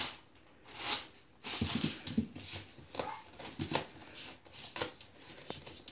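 A red Cairn terrier puppy playing with a plastic carrier bag: irregular bursts of crinkling and rustling plastic, then short scuffles and clicks as the puppy scrabbles and rolls on the tiled floor.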